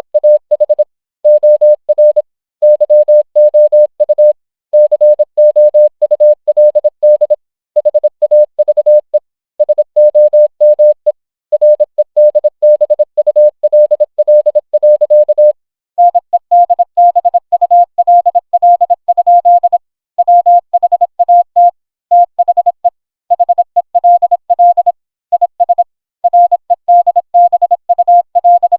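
Morse code sent as a single electronic beep tone keyed on and off in short and long beeps, dots and dashes, with short gaps between letters and words. About halfway through, the tone steps up slightly in pitch.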